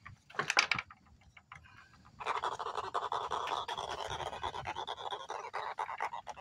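A small hooked fish with its belly puffed up grunts in a fast, rattling run of pulses while it is held and unhooked. The grunting starts about two seconds in and keeps going, after a brief scrape near the start.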